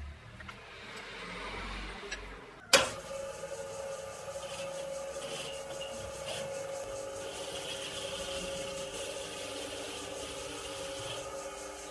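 Metal lathe: a sharp clack nearly three seconds in, then the lathe running with a steady gear whine while the cutting tool faces a small metal part. A hissing cutting noise sits over the whine from about seven seconds in.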